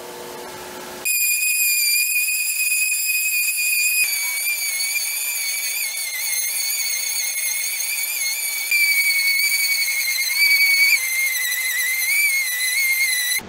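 Random orbital sander running with a high-pitched whine that starts about a second in, its pitch wavering and dipping slightly toward the end.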